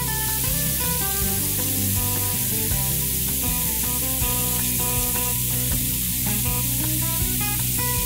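Background music of short plucked notes over the steady hiss of a thin waterfall splashing down a rock ledge.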